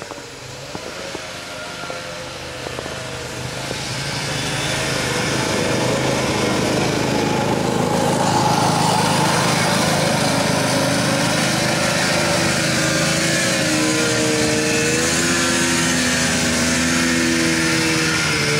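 Snowmobile engines running: a small Arctic Cat 120 youth sled passes close with a bigger sled behind it. The sound grows louder over the first several seconds and then holds steady, and the engine pitch rises and falls a few times near the end.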